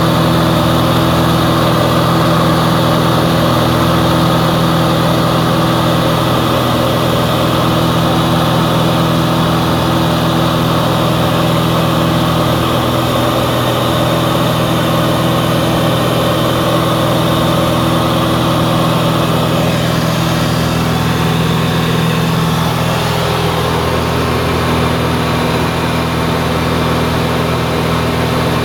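Light aircraft's engine and propeller drone heard inside the cabin in flight: a loud, steady hum with no change in speed.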